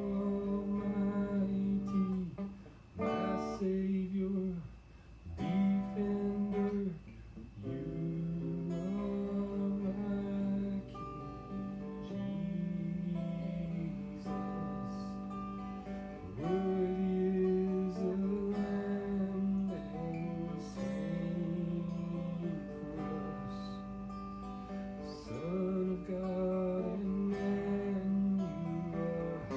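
Music: an acoustic guitar strummed and picked in steady chords, with a singing voice over it at times.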